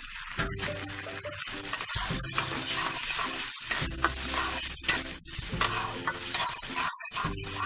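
Crumbled rohu fish roe sizzling in hot oil with fried onion in a kadai, stirred and scraped with a metal spatula that clicks against the pan at irregular moments.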